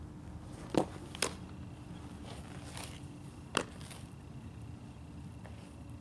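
A softball smacking into a catcher's mitt just under a second in, followed by two more sharp knocks, one close after and one about three and a half seconds in.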